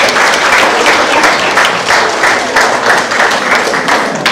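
Audience applauding: many hands clapping densely, dying away just before the end.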